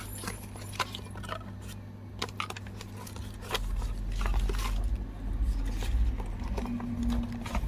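Hands handling a plastic BharatPe payment speaker and its packaging: scattered light clicks and knocks, with a low rumble of handling noise from about halfway through.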